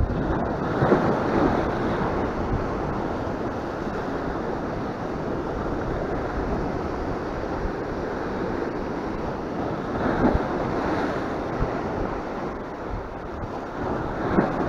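Rough sea waves breaking and washing over shoreline rocks, with wind buffeting the microphone. The surf swells louder about a second in and again around ten seconds in.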